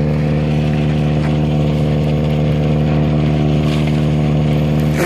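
Homemade snowblower driven by a 240-volt, 5 hp electric motor running steadily, giving a constant hum with a strong low pitch.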